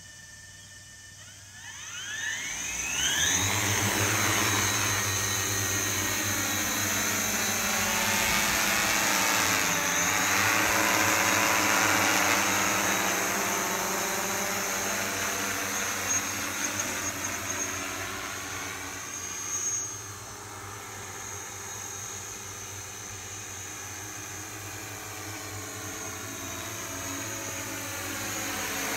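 Large agricultural multirotor drone's electric motors and propellers spinning up about a second and a half in, the whine rising steeply in pitch, then a loud, steady propeller whir as it lifts off and flies, the pitch and loudness drifting as it moves. Its newly replaced motors and ESCs are being checked in flight after it had flown unsteadily.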